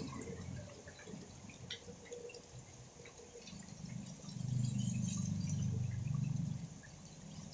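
Scattered drops of rainwater dripping and ticking. About four seconds in, a low steady hum joins and fades out again near the end.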